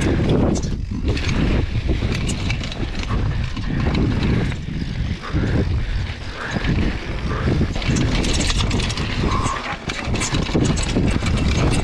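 Mountain bike riding fast down a dirt trail: a steady low rumble of tyres on dirt, with frequent rattles and knocks from the bike over the bumps.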